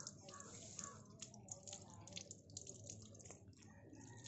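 Faint tap water running and splashing over a bunch of coriander leaves held in the hand, with irregular small drips and ticks.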